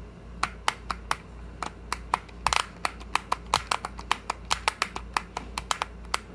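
ShengShou magnetic clock puzzle being worked by hand: a quick run of sharp plastic clicks, several a second, starting about half a second in, as its dials and pins are turned and pressed.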